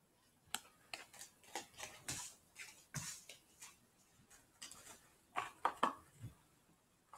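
Playing cards being handled on a wooden table: a run of short, irregular clicks and snaps as cards are flicked, squared and set down. A denser, louder flurry comes about five and a half seconds in.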